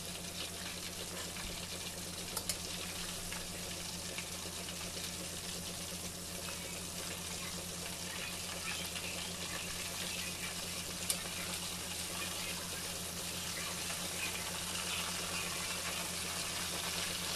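Fish fillets deep-frying in hot oil in a stainless steel pot: a steady sizzle, with a low hum underneath and two sharp clicks, one a couple of seconds in and one about eleven seconds in.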